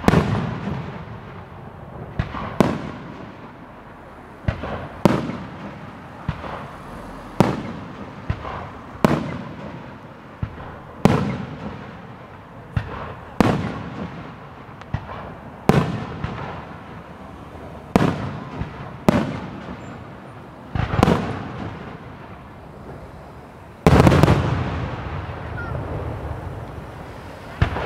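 Aerial firework shells from a large display bursting one after another, a sharp bang every one to two seconds, each echoing away. The loudest and longest bang comes about 24 seconds in.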